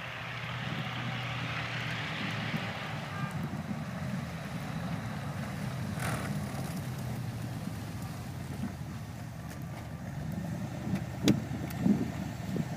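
Bombardier tracked snow buses running as they drive up across the snow, a steady low engine rumble. Two sharp knocks near the end.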